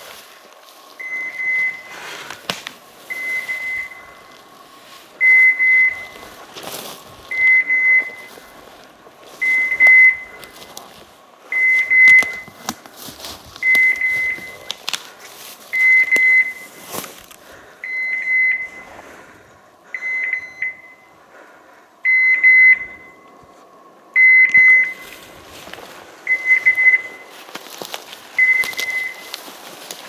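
Hunting dog's electronic beeper collar giving a single high beep about every two seconds, alongside footsteps crunching through dry leaves and bracken.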